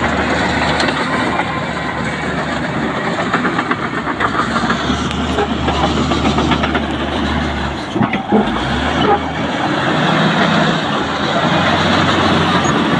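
LiuGong B160C crawler bulldozer working close by: its diesel engine running steadily while the steel tracks clatter and the blade pushes loose red soil, with a few sharper knocks about eight seconds in.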